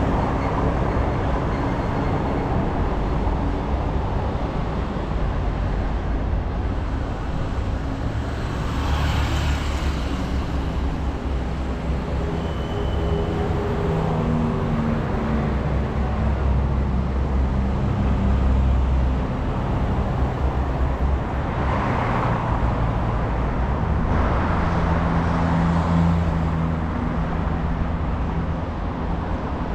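City road traffic: motor vehicles pass with engines running and tyre noise over a steady low rumble, with several swelling up and fading as they go by.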